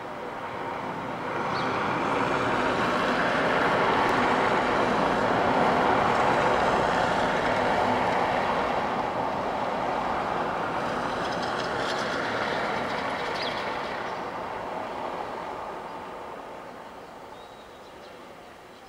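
A vehicle passing by: a rushing noise that swells over the first few seconds and then slowly fades away.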